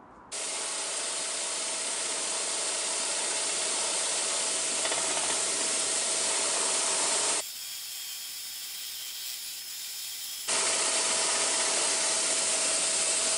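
Hegner scroll saw starting suddenly and running steadily, its fine blade cutting a pattern out of a thin board, with a steady tone in the noise. For about three seconds in the middle the sound turns quieter and hissier, then the same running sound returns.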